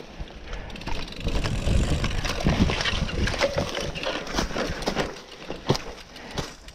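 Cyclocross bike riding over a leaf-covered dirt forest trail: tyres crunching dry leaves, with the frame and chain rattling and knocking sharply over bumps.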